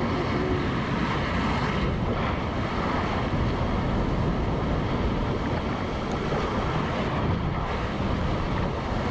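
Water rushing along a waterslide flume under a sliding rider, mixed with wind buffeting the microphone: a steady rushing noise.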